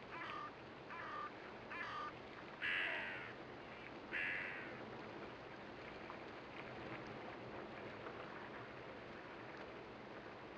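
Hooded crow cawing five times in quick succession, the last two caws louder and longer, over a faint steady background hiss.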